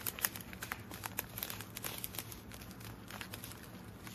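Clear plastic bags of diamond painting drills crinkling as they are handled, in irregular small crackles that are busiest in the first couple of seconds and thin out after.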